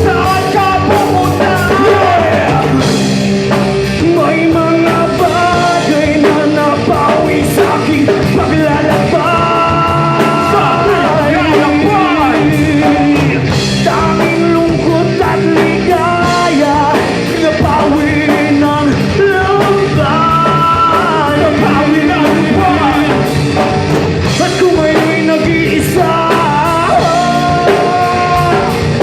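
A rock band playing live: electric guitar, bass guitar and drums under a singer's lead vocal, continuous and loud.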